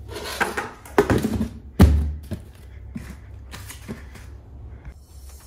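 Old paint in a bucket that has gone bad and set hard, being knocked and scraped at: a series of irregular knocks with some scraping, the loudest a little under two seconds in.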